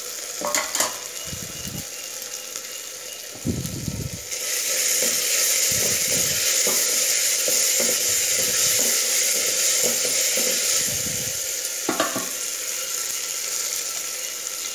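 Onions, tomatoes and spices frying and sizzling in hot oil, with a spoon stirring and knocking against the pan. About four seconds in the sizzle jumps much louder, as when the chopped potatoes go into the hot oil, and it eases off some six seconds later.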